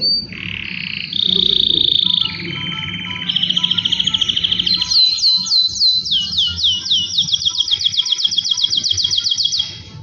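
Male canary singing a long song of rapid trills, each held for about a second at a different pitch, then a run of repeated falling sweeps, about five a second, that stops shortly before the end.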